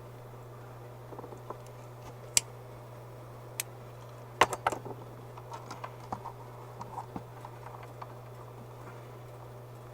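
Small hand tools and wires being handled at a soldering bench: a few sharp clicks, the loudest cluster about halfway through, then scattered light ticks and taps, over a steady low hum.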